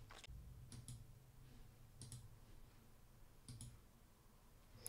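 Faint computer mouse clicks, a few short ones spaced a second or so apart, some in quick pairs, over quiet low room hum.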